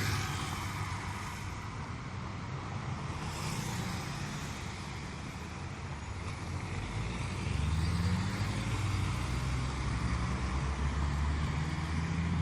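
An engine running steadily. Its pitch and level rise about seven seconds in, then hold.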